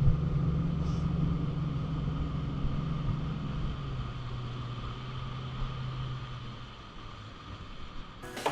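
A steady low rumble with a held hum, slowly fading away. Music starts near the end.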